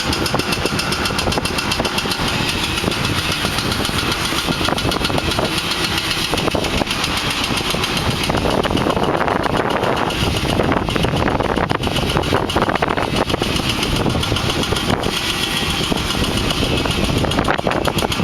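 Demolition equipment running and hammering rapidly and continuously at the concrete site, a loud engine drone under the pounding.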